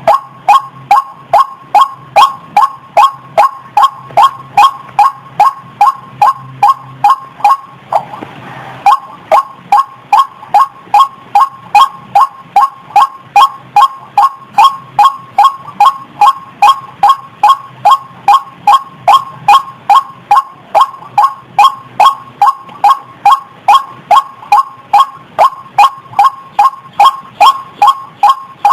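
White-breasted waterhen calls played as a repeating lure recording: short, loud, pitched notes about two a second, with a brief pause about eight seconds in.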